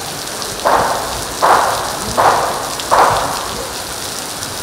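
Heavy rain falling steadily, with four evenly spaced sharp beats about three quarters of a second apart from a squad of soldiers doing synchronized rifle drill, the last dying away about three seconds in.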